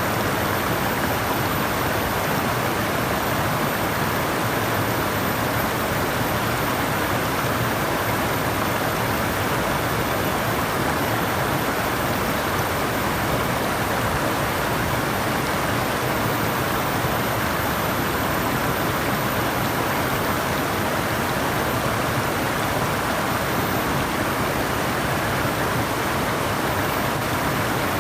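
Flowing water running steadily in an even, unbroken rush.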